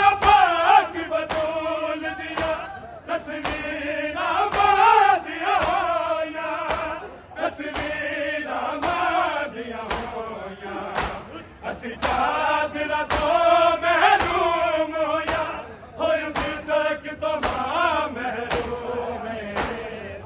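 A group of men chanting a noha, a Muharram lament, in unison, phrase by phrase, over a regular beat of sharp slaps from hands striking chests in matam.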